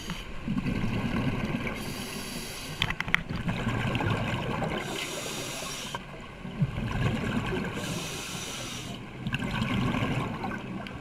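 Scuba diver breathing through a regulator underwater: the airy hiss of each inhale alternating with the low, bubbling rumble of each exhale, about three breaths.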